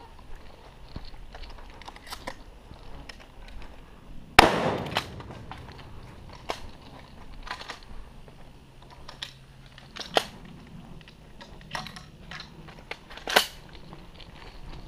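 A shotgun fires once, loud and sharp, about four seconds in. A scatter of lighter clicks and knocks follows, and a second, weaker bang comes near the end.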